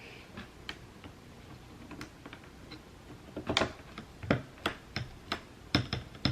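Sharp plastic clicks and taps from a hotswap mechanical keyboard being assembled, its switches and parts being handled and pressed into place: a few faint clicks at first, then louder ones about two a second from midway on.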